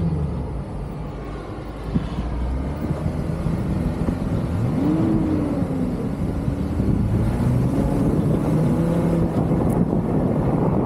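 Jeep Wrangler engines running as the 4x4s drive over desert sand. The engine note swells after about two seconds, and its pitch climbs sharply about five seconds in as the throttle opens.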